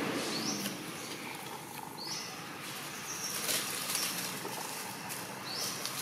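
Short, high-pitched rising squeaks repeating every second or two, with faint rustling and clicks.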